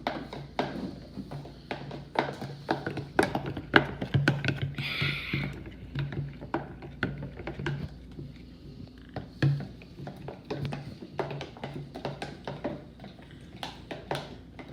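A spoon stirring glue, water and baking soda in a bowl, giving irregular taps and scrapes against the bowl.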